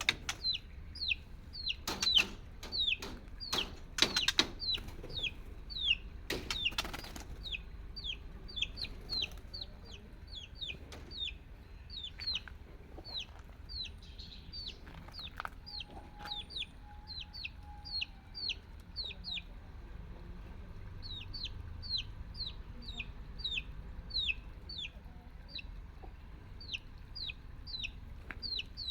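A chick peeping steadily: short, high, falling peeps about two a second. Several sharp knocks or rattles come in the first few seconds.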